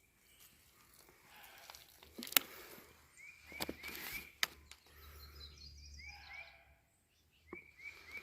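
Faint sounds of water being splashed onto a freshly sawn walnut board: short hissing splashes and a few sharp knocks. A small bird chirps repeatedly throughout.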